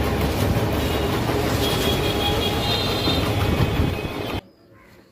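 Steady noisy din of a busy shop open to the street, with road traffic noise. It cuts off abruptly about four and a half seconds in, giving way to the much quieter sound of a small room.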